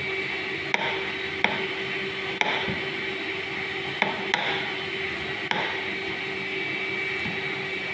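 Kitchen utensils knocking sharply and irregularly, about six times, over a steady hum with a thin high whine.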